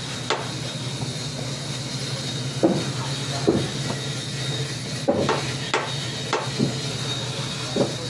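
Irregular wooden knocks, about nine of them, as a wooden mallet taps the mitered joints of a thick hardwood frame into line. Under them runs a steady low machine hum with a faint high whine.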